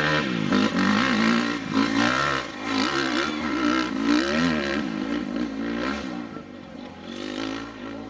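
Motocross dirt bike engine revving up and falling back again and again as the bike is ridden hard over rough ground, the pitch swinging with the throttle and gear changes. It grows fainter over the last couple of seconds as the bike moves away.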